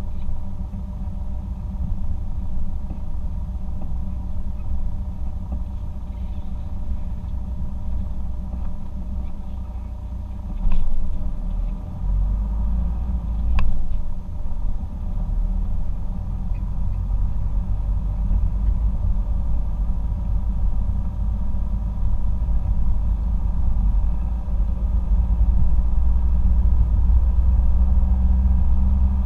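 Car interior road noise while driving: a steady low rumble of engine and tyres, heavier in the second half, with two brief knocks partway through.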